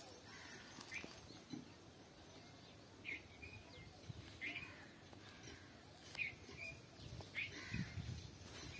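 Small birds chirping faintly, in short separate calls every second or two.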